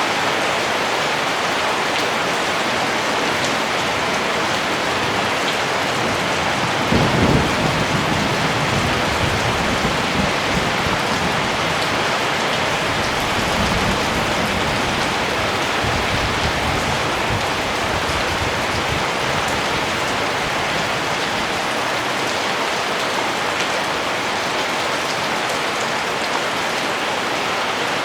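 Steady rain falling. A roll of thunder starts about seven seconds in and rumbles off over roughly ten seconds.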